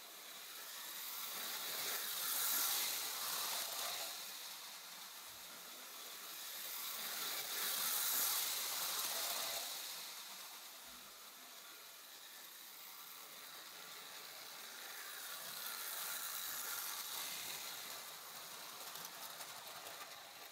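Tinplate toy train running round its track, the rattle of its wheels on the tin rails swelling and fading three times as it passes close by and goes away again.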